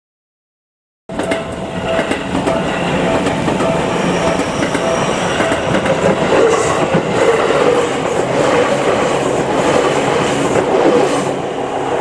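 Seibu electric commuter train passing through a level crossing, its wheels rumbling and clattering over the rails. The sound starts suddenly about a second in. A crossing warning bell rings steadily underneath.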